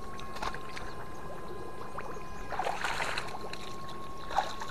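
Muddy pond water sloshing and splashing as a person wades and gropes for fish with his hands, most strongly from about halfway in to about two-thirds through, over a steady high whine. There is a sharp click near the end.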